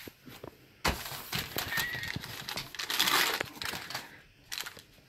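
Plastic cat-treat package crinkling and crackling as it is handled and opened, starting suddenly about a second in.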